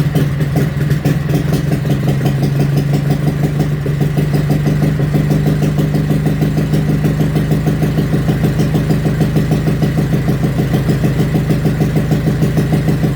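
Kohler Magnum 18 single-cylinder engine on an off-road mower idling with its muffler cut off, a loping idle of evenly spaced exhaust pulses. It has just been warm-started.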